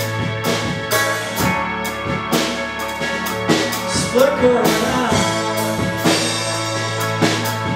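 Live rock band playing: a drum kit keeping a steady beat under electric guitar, electric bass and keyboard, with a short sung phrase about halfway through.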